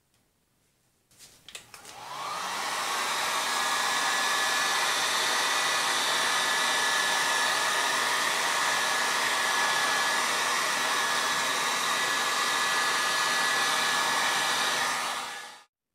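Handheld electric heat gun: a few clicks, then it is switched on about two seconds in and spins up with a rising pitch. It settles into a steady blowing hiss with a thin high whine and cuts off just before the end.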